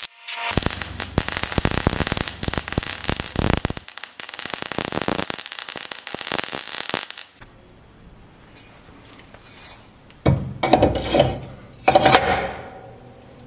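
MIG welding arc crackling steadily as mild-steel die parts are welded, stopping abruptly after about seven seconds. Near the end come two scraping, ringing metal clanks as a steel die plate is slid into place on the press bed.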